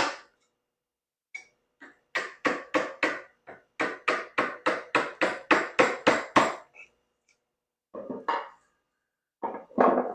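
Mallet striking a chisel in a quick run of about twenty blows, around five a second, chopping small bits of waste off the edge of a board toward a marking-gauge line. A few more single taps follow near the end.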